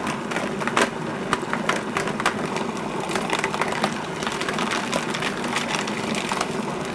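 Food processor running, blending a pork meatball paste with ice cubes: a steady motor hum with frequent sharp clicks and knocks as pieces of ice are chopped against the blade and bowl.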